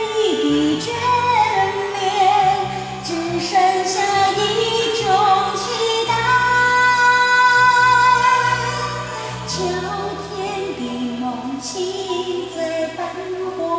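Slow Mandarin pop ballad playing: a wavering melody line with vibrato over sustained chords and bass.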